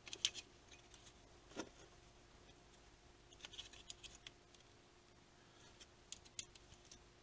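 Faint clicks and light taps of 18650 lithium-ion cells being handled and pressed into a plastic battery-pack cell holder: a few near the start, a small cluster around four seconds in and two more about six seconds in.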